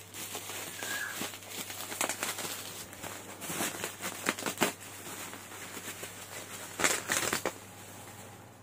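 Bubble wrap and plastic packaging crinkling and crackling irregularly as it is handled and unwrapped, loudest about seven seconds in.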